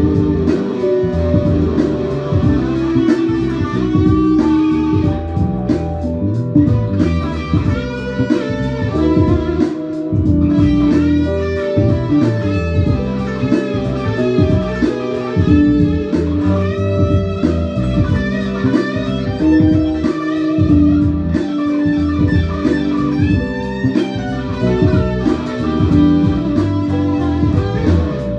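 Fender Telecaster electric guitar played through a Boss PS-6 Harmonist pitch-shifter pedal into a Roland Cube 30 amp, improvising a melody of held notes and quicker runs.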